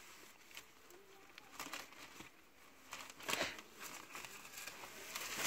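Thin sheets of kite paper rustling and crinkling as they are lifted and flipped over by hand, in irregular crackles, with a louder rustle about three seconds in.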